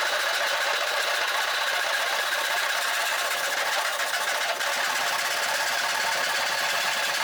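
Disston D-23 handsaw cutting through a 2x4 in fast, even strokes that run together into a steady rasping buzz.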